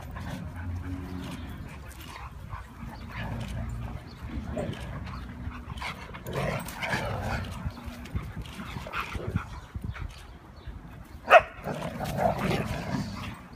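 Several Siberian huskies play-wrestling and vocalizing on and off, with one short, loud cry near the end.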